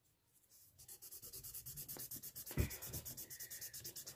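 Rapid back-and-forth rubbing on drawing paper, about six strokes a second, as graphite shading is blended in; it starts about a second in, with a couple of soft bumps on the paper midway.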